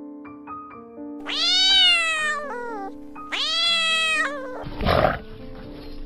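A cat meowing twice, each meow about a second long and rising then falling in pitch, over piano music; a short rough, noisy sound follows near the end.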